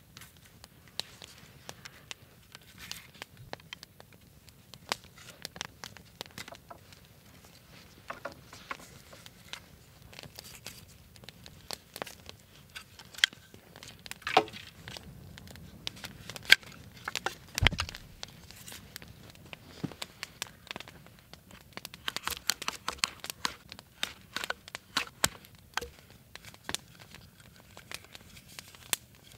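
Scattered small clicks, rustles and crinkles of hands handling a wooden bushcraft fishing rod, its cord lashings and a plastic line spool, with one louder thump a little past halfway.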